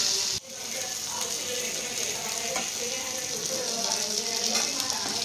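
Chicken pieces sizzling and crackling steadily as they shallow-fry in oil in a nonstick kadai, with a flat spatula moving them in the pan later on. A louder hiss at the start stops abruptly about half a second in.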